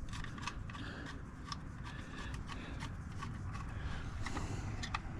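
Faint scattered light clicks and taps of hands handling parts while working on a tractor's battery cable, over a low steady hum.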